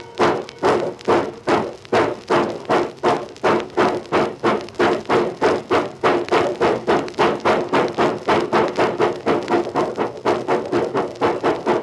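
Steam locomotive exhaust chuffing as the train pulls out of the station, the beats steadily quickening from about two to about three a second, heard off an old 78 rpm record.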